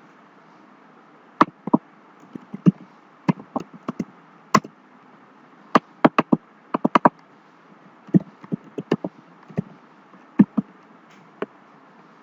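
Computer keyboard keys clicking as code is typed and edited: sharp single clicks in irregular quick groups with short pauses between them.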